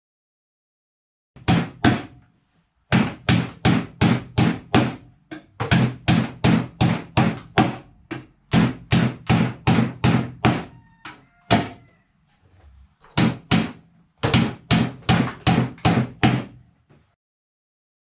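Claw hammer driving nails into the box joints of a wooden beehive deep super: runs of sharp blows, about two to three a second, broken by short pauses.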